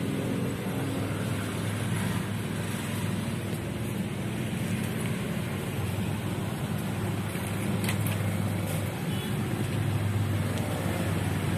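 Street traffic of motorcycles and cars: small engines running and passing in a steady drone, the engine hum swelling near the end.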